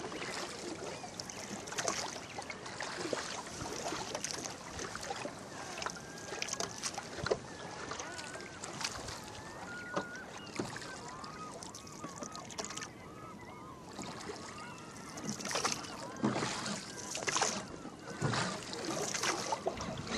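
Oars of a small rowboat working the water, with knocks and splashes at the strokes and water moving along the hull.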